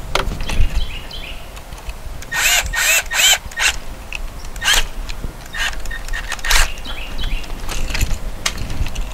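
A dog barking several times: three quick barks about two and a half seconds in, then single barks later, over light handling noise.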